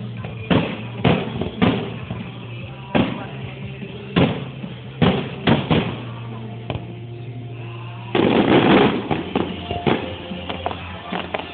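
Fireworks bursting overhead, about a dozen sharp bangs at uneven intervals, with a louder, dense volley about eight seconds in. Music plays steadily underneath.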